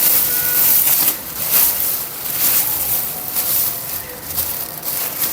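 Thin plastic bin liner crinkling and rustling in irregular crackles as it is handled and pulled at to open.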